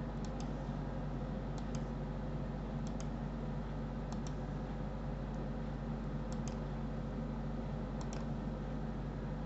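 Computer mouse button clicking about six times, each click a quick press-and-release double tick, roughly once every second and a half, over a steady low electrical hum.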